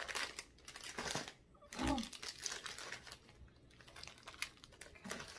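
Snack wrappers and packaging crinkling and rustling as they are handled and put away, in a run of irregular crackles.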